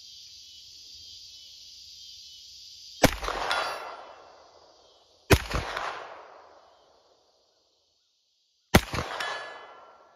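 Three single shots from a PSA AK-V9 9mm pistol-caliber carbine, about two and a half and three and a half seconds apart, each followed a moment later by the ringing clang of a steel target hit at about 100 yards. Insects trill steadily under the first two shots, then fade.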